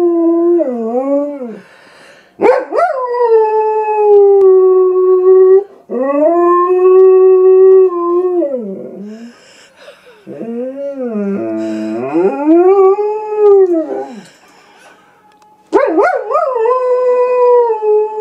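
German Shepherd howling: about five long, drawn-out howls with short breaks between them, the pitch rising and then falling within each.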